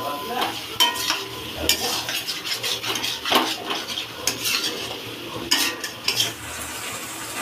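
Metal spatula scraping and clinking against a metal kadai as potato and pointed gourd pieces are stir-fried in oil and spice paste, with frying sizzle underneath. The scrapes and knocks come irregularly throughout.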